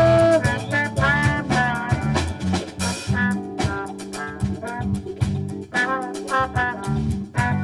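A military big band playing a swing-style jazz arrangement: brass section with trumpets and trombones over bass and a drum kit, with a cymbal crash about three seconds in.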